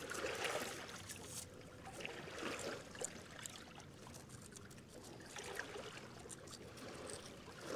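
Faint lapping of river water on a rocky shore, with light clicks of small stones being shifted by hand.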